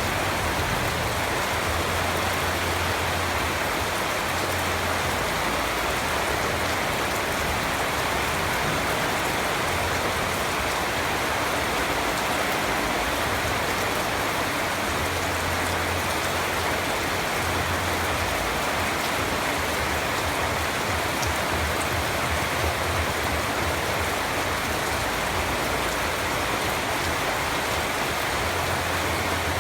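Steady heavy rain falling and hitting surfaces, an even hiss of drops.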